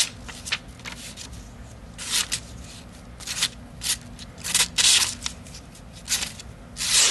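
Damascus-steel pocket knife blade making a series of short, hissing slicing cuts, about eight strokes, the loudest near the end. The cuts are a sharpness test showing the edge still cuts smoothly after being stabbed through steel cans.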